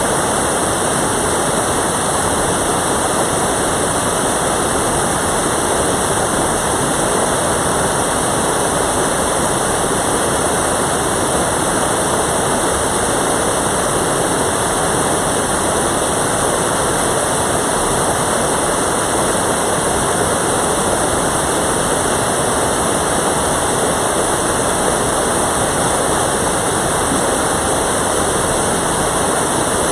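Mountain stream water rushing and cascading over rocks, a loud steady rush without a break.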